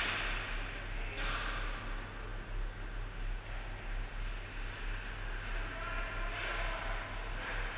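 Ice hockey rink sound: a steady low hum, with a few short hissing scrapes of skates on the ice at the start, about a second in, and again near the end.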